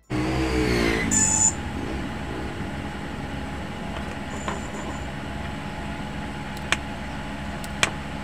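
A motor vehicle passing, its engine note falling in pitch over the first second, with a short high tone about a second in, over a steady background hum. Later come a few sharp clicks of wires and tools being handled.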